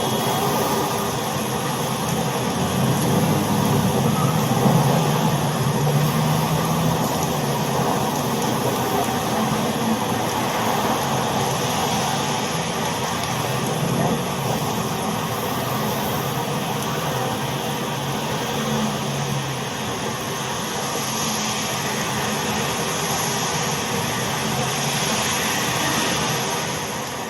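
Car traffic on a wet road in the rain: a steady wash of tyre and rain hiss with the low hum of passing car engines. The engine rumble swells a few seconds in, and a louder hiss of passing tyres comes about three quarters of the way through.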